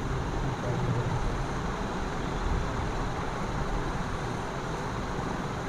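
Steady background noise: a low rumble with an even hiss, with no speech and no distinct events.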